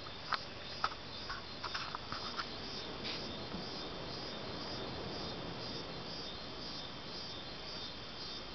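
Night chorus of calling insects, most likely crickets: a steady high trill with a regular high chirp about twice a second. A few short sharp clicks come in the first couple of seconds.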